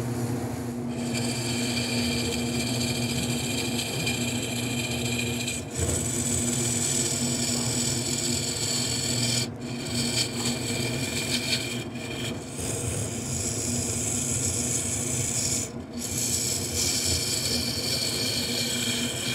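Turning tool cutting into a spinning almond-root vessel on a wood lathe: a steady rasping cut over the lathe's low motor hum. The cut starts about a second in and breaks off briefly three times, near the middle and again later, as the tool comes off the wood.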